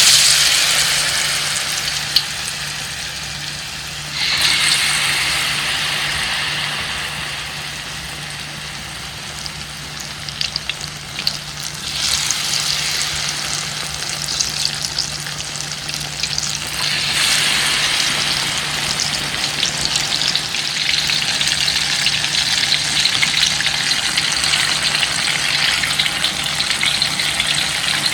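Battered banana pieces deep-frying in hot oil: a loud, steady sizzle that swells again about four, twelve and seventeen seconds in. A faint low hum runs under it.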